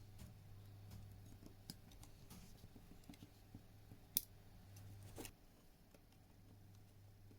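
Faint scattered small clicks and taps of hand work on a circuit board, with one sharp click about four seconds in and a short rustle about a second later, over a low steady hum.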